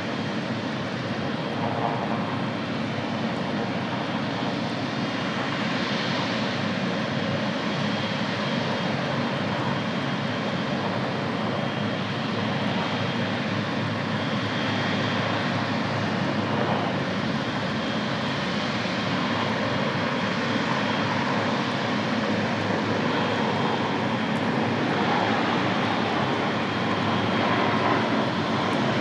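Airliner engines running as a steady rush with a faint high whine, growing slightly louder near the end.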